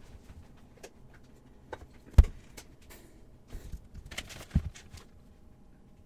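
Scattered faint clicks and knocks from handling a computer at a desk, with one louder low thump about two seconds in.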